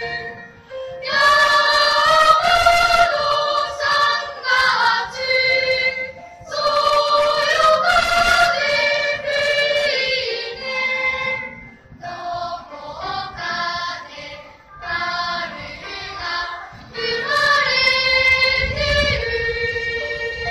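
Children's choir singing, in phrases broken by short pauses for breath; the middle passage is softer, and the singing swells louder again near the end.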